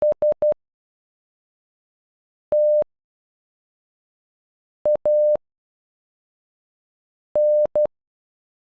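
A Morse code tone of one steady mid pitch, beeping out the letters S, T, A and N of "Stanley" one letter at a time with about two seconds of silence between letters: three short beeps, then one long, then short-long, then long-short.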